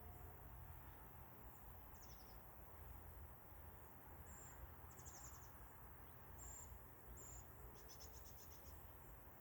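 Faint high-pitched chirps and short rattling trills from small animals, coming every second or two, over a low steady rumble.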